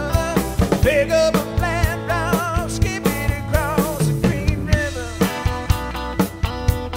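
Rock-and-roll style music: a singer with wavering held notes over a steady drum beat.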